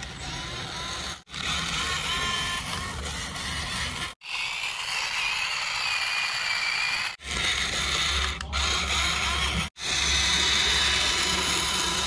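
Small electric motors and plastic gearboxes of remote-controlled toy vehicles whirring, with a whine that wavers up and down in pitch over a low hum. The sound cuts out abruptly for a moment four times.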